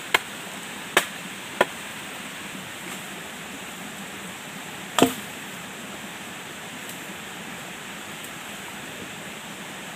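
Knife chopping on a cutting board: four sharp, uneven strikes in the first half, the loudest about five seconds in, over a steady hiss.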